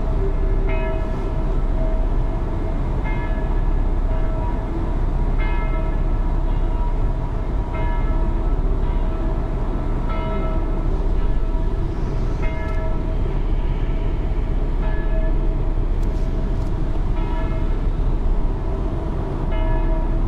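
Distant church bells ringing the noon peal: overlapping strikes about once a second, each ringing on into the next, over a steady low rumble.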